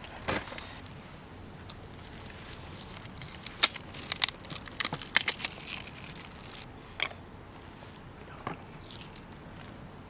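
Chopsticks and tableware clicking and clinking against a metal camp bowl as food is picked at, with a quick run of sharp clicks about four to five seconds in and a single click near seven seconds.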